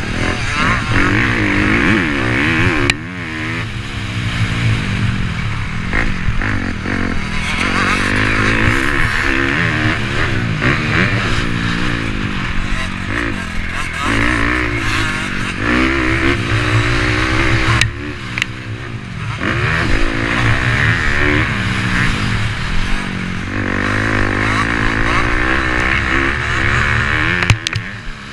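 Motocross bike engine revving up and down as it is ridden, its pitch rising and falling again and again with throttle and gear changes. The sound drops off sharply for a moment a few times.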